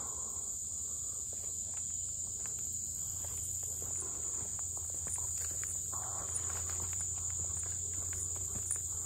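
A steady high-pitched chorus of insects, with faint footsteps on a dirt path.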